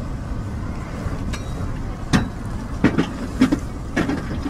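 Steady low rumble of street traffic, with a handful of short, sharp clicks and knocks between about one and four seconds in.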